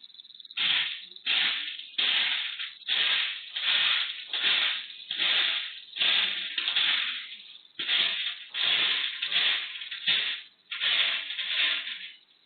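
A cat scratching and digging in cat litter, in quick repeated strokes of gritty noise about one and a half a second.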